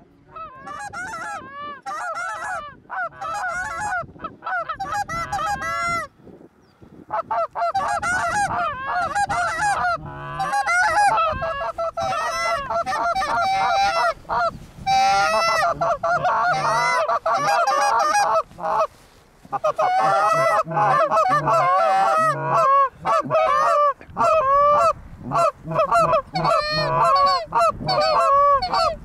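Canada goose honks and clucks, many rapid, overlapping calls going almost without a break, with short pauses about six seconds and nineteen seconds in.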